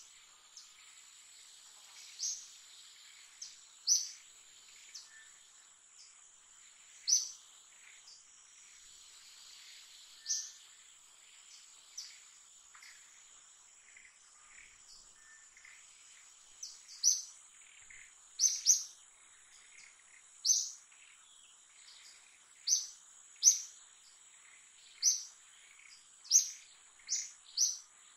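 Short, sharp high bird chirps at irregular intervals, coming more often in the second half, over a steady high-pitched insect whine.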